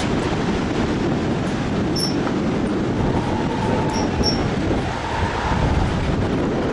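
Steady rushing noise of the Bhote Koshi river's whitewater, mixed with wind on the microphone. A few faint, short, high chirps come about two and four seconds in.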